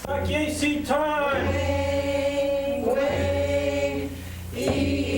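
A group of voices singing a Tlingit song together, unaccompanied, in long held notes over several phrases, with a short break about four seconds in.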